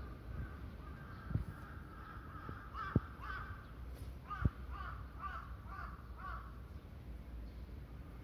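A bird calling off-screen. From about three seconds in it gives a string of short repeated calls, about three a second, and a few dull low thumps sound among them.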